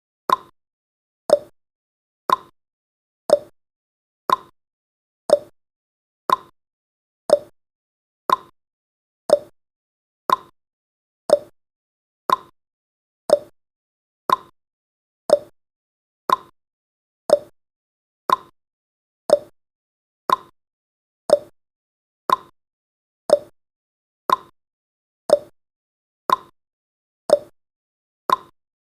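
Countdown timer's ticking sound effect: one short, sharp tick each second, at a steady beat.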